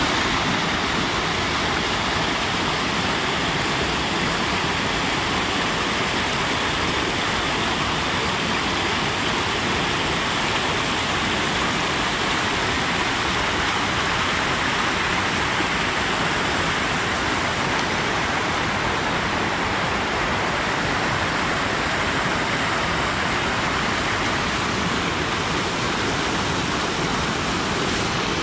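Mountain stream rushing and splashing over boulders in small cascades, a steady, unbroken roar of water.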